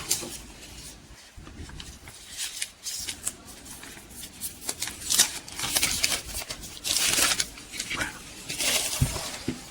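Thin plastic protective film being peeled off a small plastic device and handled, with several short crinkling, scraping rustles.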